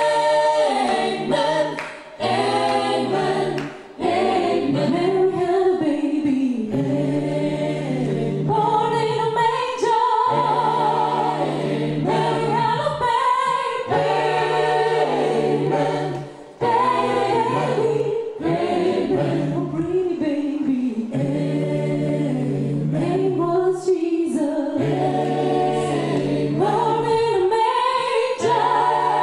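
Mixed group of women's and men's voices singing together in harmony, in sustained phrases with brief breaks between them.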